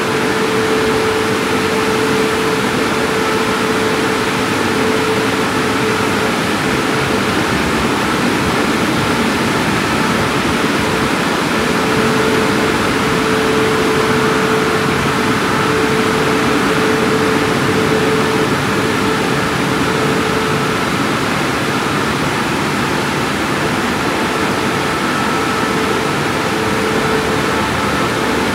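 Christ Genius automatic car wash gantry running over a car: a loud, steady rushing noise with a constant hum that fades out and back in a few times.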